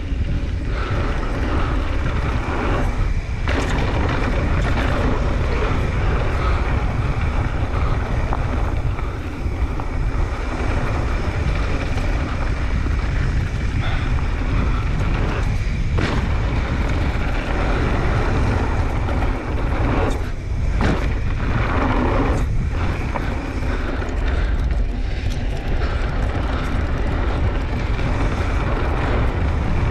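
Wind rushing over a chin-mounted action camera at riding speed, a steady low rumble, mixed with knobby mountain-bike tyres rolling over a dry dirt trail and the bike clattering over bumps now and then.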